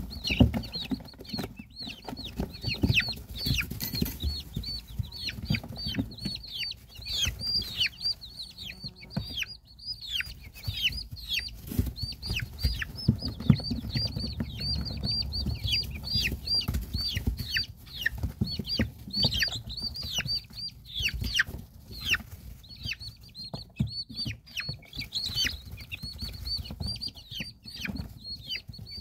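A brood of chicks peeping continuously: many short, high cheeps, several a second, each falling in pitch. Low bumps and rustles come in now and then underneath.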